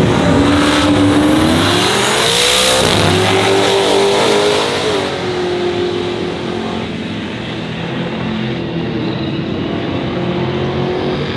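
A car engine accelerating: its pitch rises for about three seconds, drops, then holds steady while the sound slowly fades.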